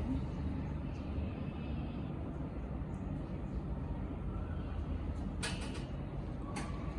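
Steady low background hum, with a brief sharp noise about five and a half seconds in and a smaller one a second later.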